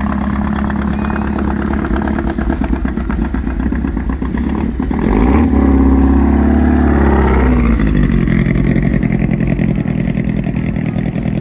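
Toyota Supra's engine running at a steady idle, then getting louder and rising in pitch about five seconds in as it pulls away, falling back a few seconds later.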